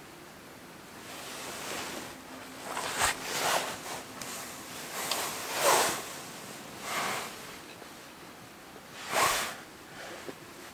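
Hands handling paper or plastic food wrapping and kitchen gear: a handful of short rustling swishes a second or two apart.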